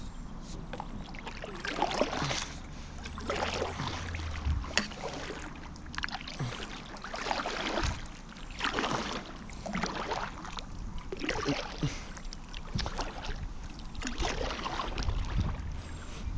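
A paddle dipping and pulling through the water from a paddle board, a splashing swish that repeats roughly every one to two seconds.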